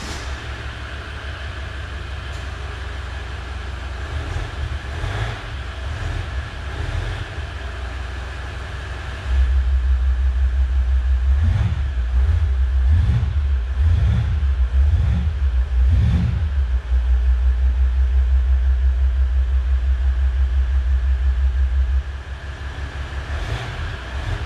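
Maserati Levante 3.0 V6 diesel running with its stock active sound system. It idles at first, then about nine seconds in the sound steps up louder and deeper as sport mode is engaged. A series of short revs follows, and near the end it falls back to the quieter non-sport idle.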